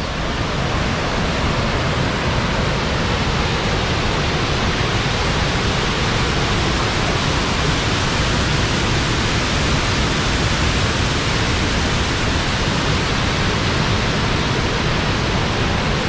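Waterfall: a loud, steady rush of white water pouring over a rock ledge into a churning pool.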